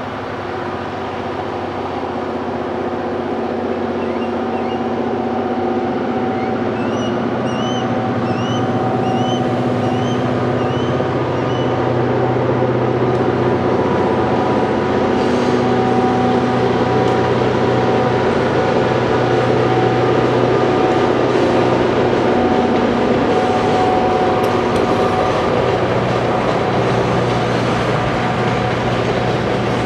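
EMD GP38-3 diesel locomotive's two-stroke engine drawing near and passing over a steel girder bridge with a steady drone that grows louder through the first half. From about halfway, tank cars roll over the bridge with a string of wheel clicks. About a third of the way in, a bird gives a quick run of about eight short rising chirps.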